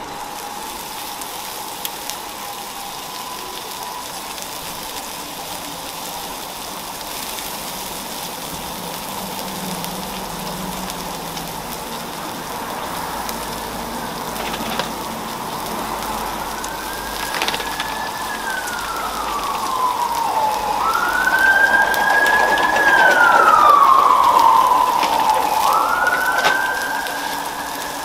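Food sizzling on a flat-top griddle with an egg frying, a steady hiss. From a little past halfway, a siren wails in long rising and falling sweeps. It grows loudest near the end and is then the loudest sound.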